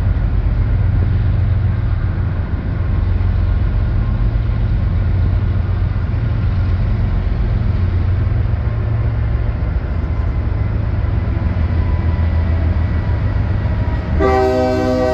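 Steady low rumble as a CSX GE ES44DC diesel locomotive approaches at the head of a freight train. About 14 seconds in, the locomotive's air horn starts blowing, a loud chord of several steady tones.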